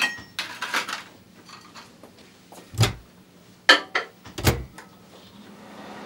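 A Lartec microwave oven being loaded and set: a few knocks and clicks of its door and dial, two of them heavier thumps. Near the end the oven starts running with a steady hum.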